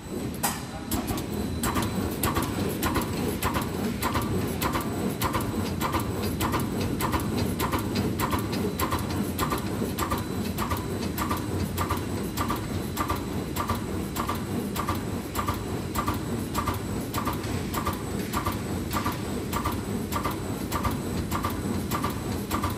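Paper roll-to-sheet cutting machine running, with a steady rumble from its feed rollers and drive. Its cutter clacks regularly, about three cuts every two seconds, as it chops butter paper off the roll into sheets.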